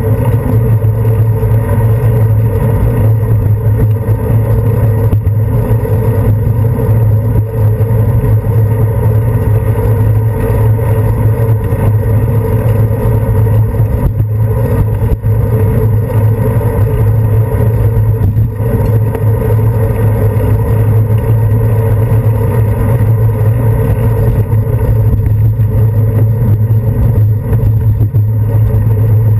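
Steady, loud rumble of wind and road vibration picked up by a handlebar-mounted action camera on a moving bicycle, with passing car traffic mixed in.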